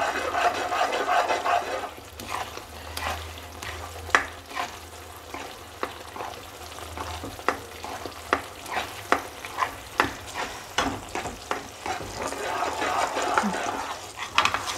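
A spatula stirring and scraping thick banana toffee mixture around a pan over a gas flame, with frying sizzle, as the mixture is cooked down until it thickens. The continuous scraping gives way about two seconds in to a run of sharp, irregular clicks and taps, and it returns near the end.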